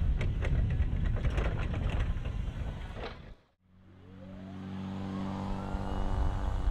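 Electric forklift driving over block paving, its mast and forks rattling and clicking. The sound fades out about halfway through. Then the truck's hydraulic pump motor starts with a rising whine and settles into a steady hum.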